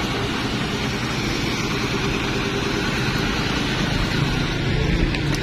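Diesel engine of an old Toyota wrecker truck running steadily at idle.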